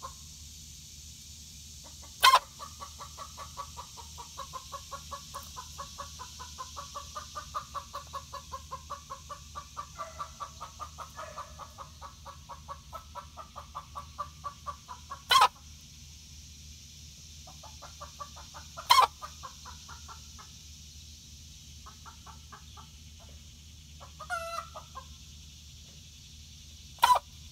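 Chicken making a long, rapid, pulsed trill of low clucks, broken four times by a short, sharp burst that sounds like a sneeze. The sharp bursts are the loudest sounds.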